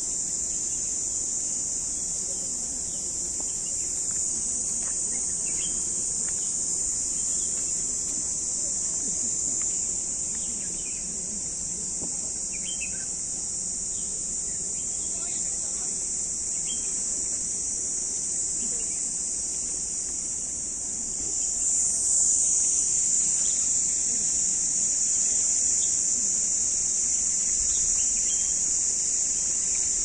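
A steady, high-pitched chorus of insects that gets louder about two-thirds of the way through, with faint, scattered bird chirps.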